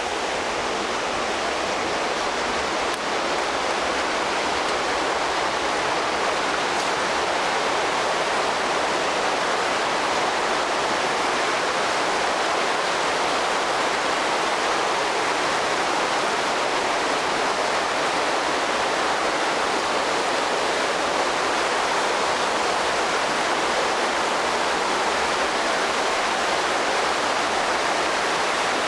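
Stream water rushing loudly and steadily through a tunnel under an old railway embankment, one even rush of noise with no breaks, growing slightly louder over the first few seconds.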